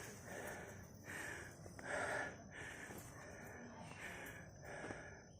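Faint heavy breathing from a hiker out of breath on a long stair climb, a puffing breath roughly every second.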